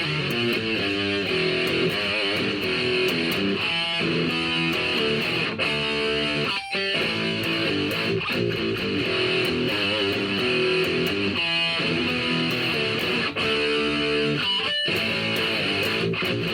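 Guitar playing: strummed chords that change every second or two, running on steadily.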